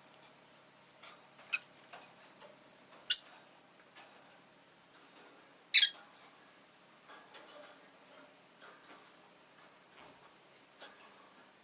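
Rosy-faced lovebirds giving short, shrill calls: a faint one, then two loud ones about two and a half seconds apart. Soft scattered clicks and ticks come in between.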